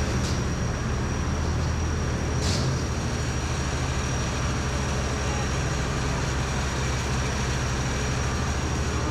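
Heavy band sawmill's engine running at a steady speed: an even low drone with a faint high whine, and a couple of faint ticks in the first few seconds.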